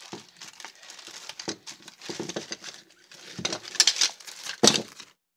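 Plastic zip-top bag and clear plastic packaging crinkling and rustling as they are handled, in irregular crackles that are loudest about four seconds in.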